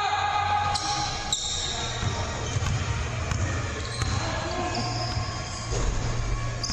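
Basketball bouncing and being dribbled on a hardwood gym floor, a few sharp thuds, with players' voices echoing in the large gym hall.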